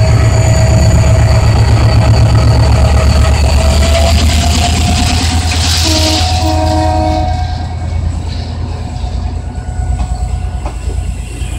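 EMD GT-22CW diesel locomotive pulling away under power, its two-stroke diesel engine giving a loud, pulsing low rumble with a steady high whine. Two short horn blasts sound about six seconds in. After that the passenger coaches roll past more quietly, wheels clicking over the rail joints.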